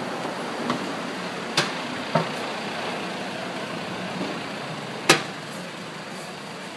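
Road traffic noise as cars pass on a city street, with a few short sharp knocks, the loudest about five seconds in.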